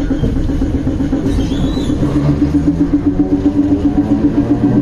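St. Charles line streetcar running, heard from inside the wooden-seated car: a steady, rhythmically pulsing hum, joined about halfway through by a motor whine that rises in pitch.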